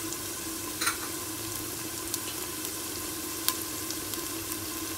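Hot oil sizzling steadily in a cooking pot as it fries sliced onions, garlic, ginger and whole spices, with a couple of sharp pops, one about a second in and one a little past the middle.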